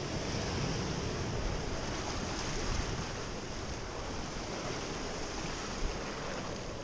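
Sea surf breaking and washing over rocks, a steady rush that swells a little in the first few seconds.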